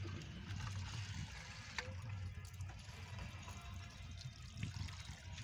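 Water trickling and gurgling in a waterlogged earthing bore hole as a pipe is worked down into it, over a low steady hum.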